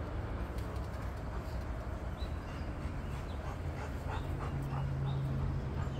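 A dog giving a string of short, high-pitched whimpering calls over a steady low hum.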